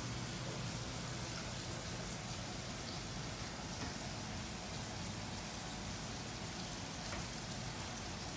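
Steady room noise: an even hiss with a low hum underneath and a couple of faint ticks.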